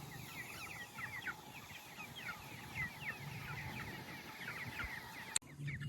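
A flock of chickens chirping together: many short, falling chirps overlapping in a steady chatter, thinning out suddenly near the end.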